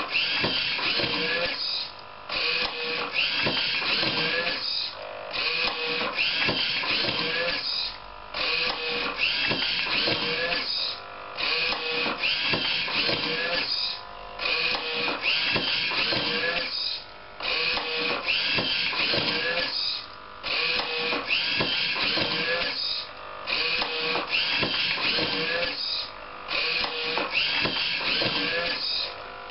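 A DIY automatic book scanner's motors and page-turning mechanism running in a repeating cycle, with a whining, whirring machine sound broken by a short pause about every three seconds, one page per cycle.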